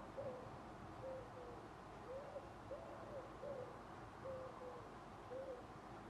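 A pigeon cooing: low, soft hooting coos in repeated phrases, each note a short rise and fall in pitch, faint against a steady background hiss.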